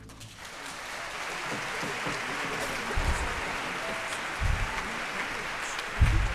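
Theatre audience applauding, the clapping swelling over the first second or two and then holding steady, with a few low thumps about three, four and a half and six seconds in.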